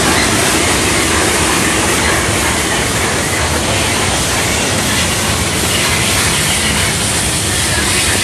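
Steam-hauled express rolling slowly past at close range behind 70000 'Britannia', a two-cylinder Britannia-class Pacific: a steady noise of wheels on rail and steam hissing from beneath the locomotive, mixed with heavy rain.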